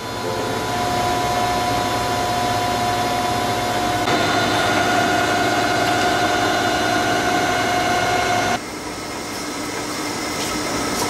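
Radial arm drill press running: a steady motor hum with a high held whine that grows louder about four seconds in. About three-quarters of the way through the sound drops suddenly to a lower, steady machine hum.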